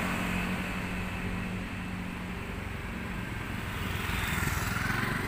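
Street traffic with a motorcycle engine running steadily, and a passing vehicle whose pitch rises about four seconds in.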